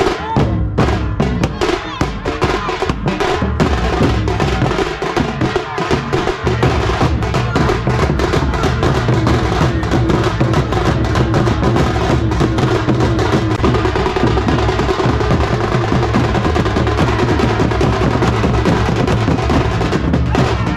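A troupe of drummers beats large waist-slung drums with wooden sticks, loud and rhythmic. For the first few seconds the strikes are separate and sharp; from about six seconds in they merge into a fast, dense roll with heavy bass.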